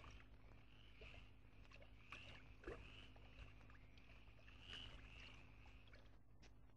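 Near silence with faint, short animal calls repeating every half second or so, and soft splashes of men wading through shallow water.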